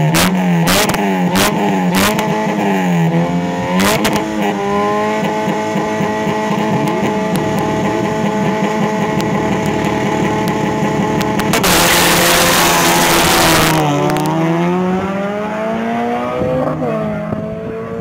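Supercharged Honda Civic Si engine revving up and down repeatedly with sharp cracks, then held at a steady high rpm for several seconds while the car stands still. Partway through, a loud hissing rush lasts about two seconds; then the revs fall and climb again.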